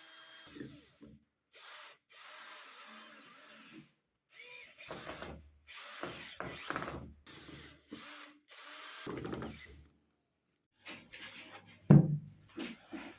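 Woodworking power tool, a drill, running on wood in short spells, each cut off abruptly by silence, mixed with scraping and knocking of wooden parts. A sharp knock about twelve seconds in is the loudest sound.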